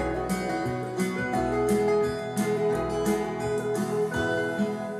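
Instrumental passage of a folk-rock song, acoustic guitar to the fore over a bass line, played back over a pair of Coral full-range hi-fi loudspeakers in a room.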